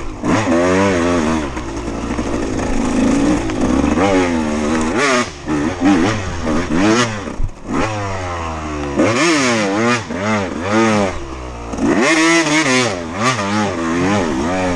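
KTM 200 XC-W two-stroke dirt bike engine revving up and down over and over as the throttle is worked, its pitch rising and falling about once a second with brief drops off the throttle.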